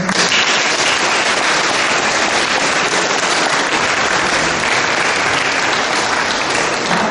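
An audience clapping steadily, a dense even applause.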